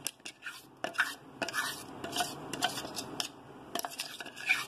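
A spoon scraping thick dosa batter out of a steel mixer-grinder jar into a bowl: irregular metal scrapes and clinks against the jar.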